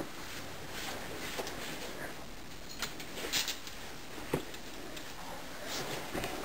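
A few light clicks and knocks from a lightweight aluminium camera tripod being set down and adjusted on carpet, with soft footsteps and clothing rustle.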